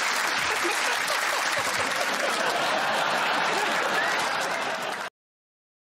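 Studio audience applauding and laughing. The applause cuts off abruptly about five seconds in, followed by dead silence.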